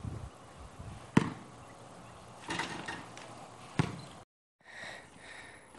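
A basketball hitting something hard twice: a sharp thud about a second in, then another just before four seconds in. The sound cuts out briefly soon after the second hit.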